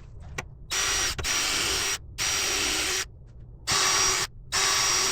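Power drill run in about five short bursts, each under a second, the motor holding a steady pitch through each burst.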